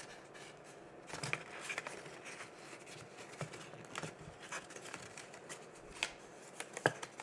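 Cardstock being folded and creased by hand along its score lines: faint rustling with a few sharp crackles, the loudest near the end.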